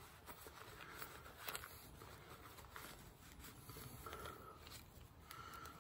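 Near silence with faint rubbing and light handling clicks as a rag wipes off a small part, with a couple of soft brief rubs near the end.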